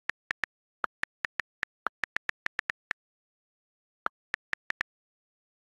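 iPad on-screen keyboard key clicks as a phrase is typed. There is a quick run of about sixteen clicks, a pause of about a second, then five more. A few slightly deeper, louder clicks fall at the spaces between words, the space bar's sound.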